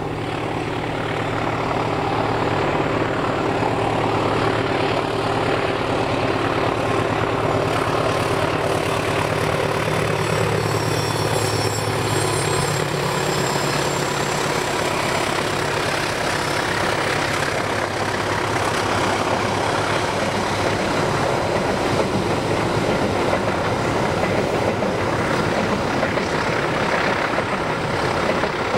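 A passenger train passing at speed. The diesel locomotive's engine hum builds over the first couple of seconds and fills the first half, then gives way to the steady rumble of the carriages' wheels running on the rails.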